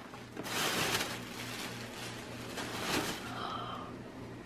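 Paper gift bag and tissue paper rustling as a soft item is pulled out, loudest from about half a second to a second in and again briefly near three seconds, over a faint steady hum.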